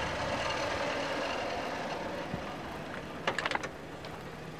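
Steady running noise of a motor vehicle, with a quick cluster of sharp clicks about three and a half seconds in.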